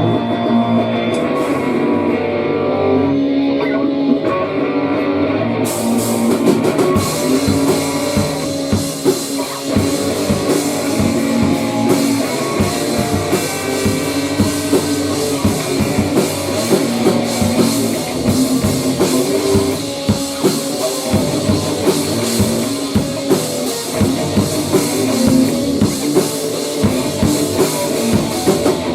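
Rock band playing an instrumental grunge/hardcore passage: electric guitar riff over drums, with cymbals coming in about six seconds in and the full kit driving on from there.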